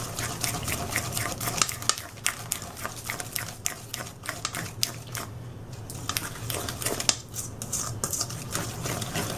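Spoon stirring a thick glaze briskly in a stainless steel mixing bowl, with rapid scraping and clicking against the metal sides several times a second; the strokes thin out briefly around the middle.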